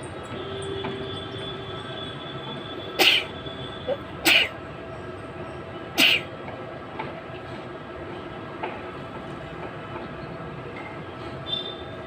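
A woman forcing three short sneeze-like bursts through her nose and mouth, a second or so apart, attempts at a sneeze that won't come, over a steady mechanical hum.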